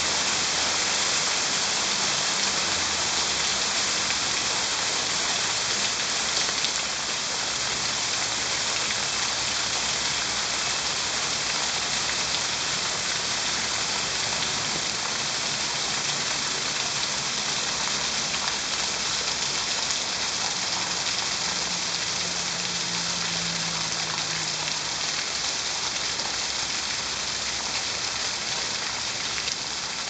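Steady rain falling on foliage and a roof, with water running off the roof edge.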